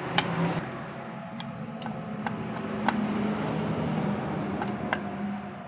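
Irregular metal clicks of a socket wrench tightening the 8 mm bolts on a motorcycle's magneto stator coil plate, over a steady low hum that swells in the middle.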